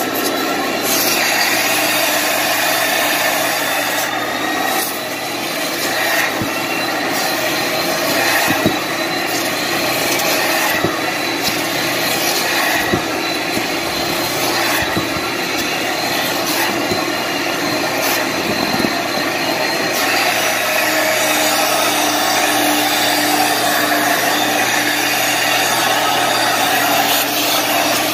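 Carpet-cleaning extractor's vacuum suction running steadily through a stainless-steel upholstery tool as it is drawn in strokes over a fabric sofa, the air rush mixed with the tool rubbing on the cloth.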